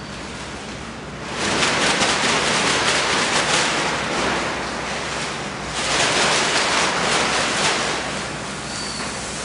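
A large plastic bag rustling and crinkling as it is handled, in two long bouts: the first starting about a second in, the second a little after the middle.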